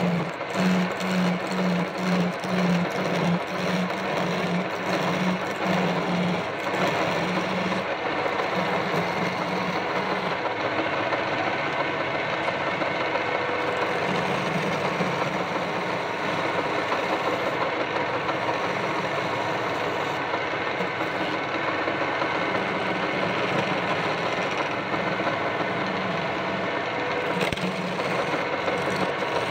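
Wood lathe running with a hand-held turning chisel cutting a spinning wooden blank: a steady motor hum under continuous scraping and cutting noise. For the first six or seven seconds the hum pulses about twice a second, then evens out.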